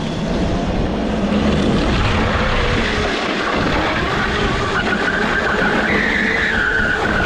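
Electric go-kart spinning a donut, its tyres skidding on the road in a loud steady rush that builds over the first second. A squealing tone comes in about halfway and briefly rises in pitch about six seconds in.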